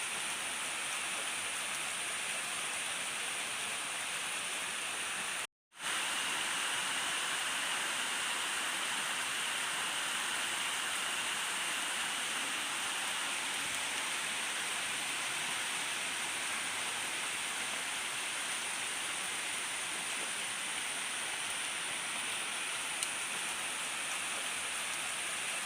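Steady, even rain falling, with no thunder. The sound cuts out completely for a split second about five seconds in, then resumes.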